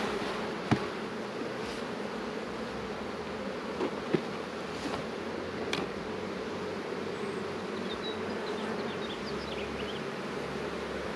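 Steady buzzing of a honeybee colony in an opened hive being worked frame by frame. A couple of sharp knocks, about a second in and about four seconds in, come from the wooden frames and hive tool against the hive box.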